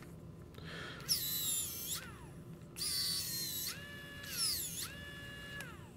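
Xiaomi Wowstick 1F+ cordless precision electric screwdriver run in four short bursts. Each burst whines up as the small motor spins up, holds a steady pitch, and winds down as it stops. It sounds kind of tinny.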